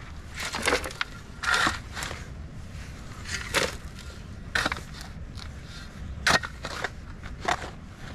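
Shovel blade digging into dry, stony soil and tipping earth into a wheelbarrow: a run of gritty scrapes and crunches, about seven in all, roughly one a second.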